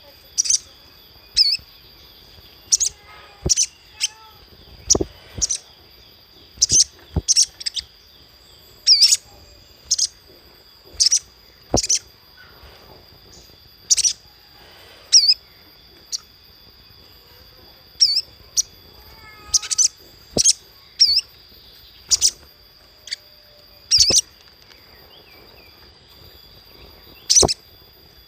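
Little spiderhunter (sogok ontong) calling: short, sharp, high chirps, singly or in quick pairs, at irregular intervals of one to two seconds. A steady high-pitched tone runs underneath.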